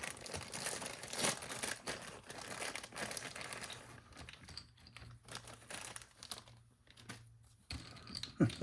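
Plastic kit parts bags crinkling and rustling as they are rummaged through, with light clicks of small parts. Busy for the first few seconds, then sparser.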